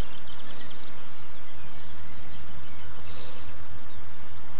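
Steady outdoor background noise with a few faint bird chirps now and then.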